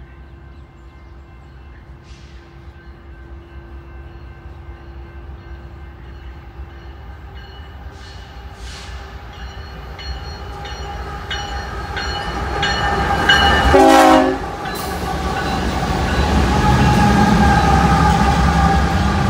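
BNSF freight train approaching and passing on diesel locomotives, growing steadily louder. A train horn sounds, its loudest blast about two-thirds through and cutting off sharply, then the locomotives' engine rumble and rolling freight cars pass close by.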